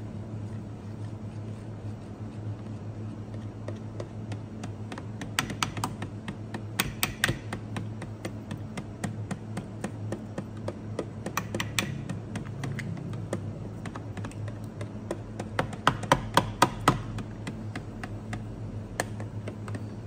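Small glass knocked against the rim of a plastic measuring jug to shake out powder, making sharp clicking taps in three clusters, the loudest a quick run of five about three quarters of the way in. A steady low hum runs underneath.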